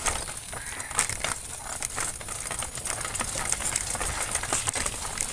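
Crunching, crackling noise with scattered sharp clicks, from a small bicycle riding over rough dirt ground.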